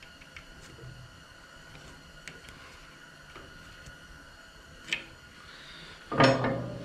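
Faint small metal clicks as a hairpin clip (R-clip) is worked through the pin on a tractor loader's stand, with a sharper click about five seconds in. A short loud sound comes near the end.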